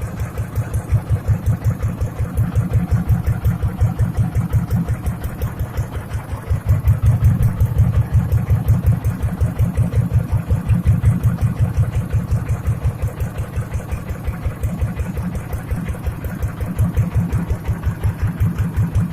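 Boat engine running steadily, its low exhaust beat pulsing at an even, rapid rate.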